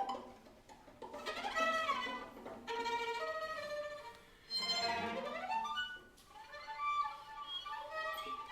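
A string quartet playing a contemporary chamber piece, with the violin prominent. The notes are bowed, with a falling slide in pitch about two seconds in and a long rising slide about five seconds in.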